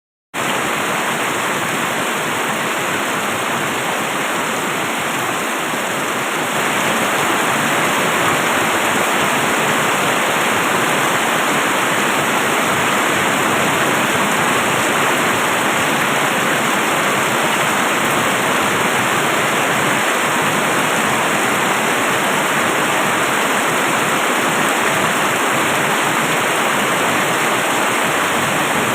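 Steady, heavy rain falling as a continuous even hiss, with no distinct drops, rising slightly in level about six seconds in.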